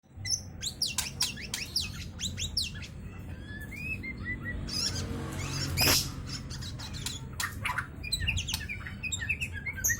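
Songbirds chirping and calling rapidly with many quick, falling high notes, and a brief noisy swish about six seconds in. A steady low hum runs underneath.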